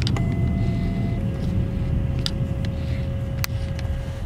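Steady low road and engine rumble heard inside a moving car, with a thin steady tone that steps lower in pitch about a second in and a few sharp clicks.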